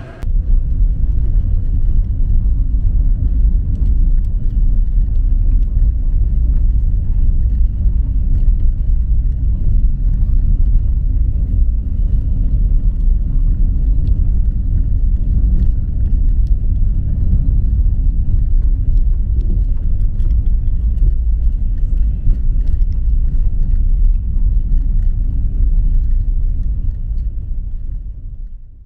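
Steady low rumble of road traffic and vehicle engines at the curb, fading out near the end.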